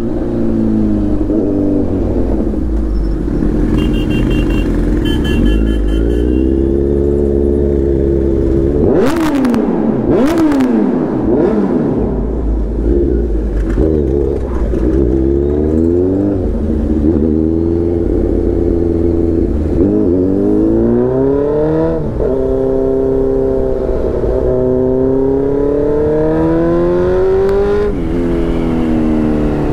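Kawasaki Z900's inline-four engine, breathing through a full titanium Arrow exhaust, accelerating through the gears: the pitch climbs and then drops back at each shift, over and over. About nine to ten seconds in come a couple of sharp cracks with a falling swoop.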